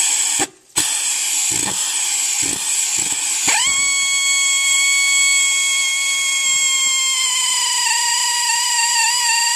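Power drill with a 21/64-inch metal bit boring out a sheared hardened-steel wheel stud stuck in a truck hub. The drill stops briefly near the start, then runs steadily, and about three and a half seconds in a high whine rises and holds, dropping slightly in pitch a few seconds later as the bit loads up.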